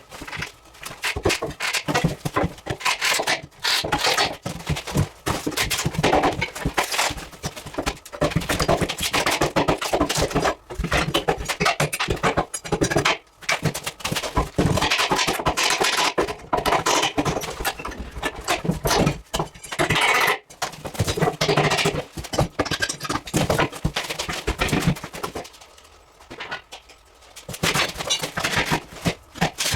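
Irregular knocks, thunks and scrapes in a small room, dense throughout with a brief lull near the end.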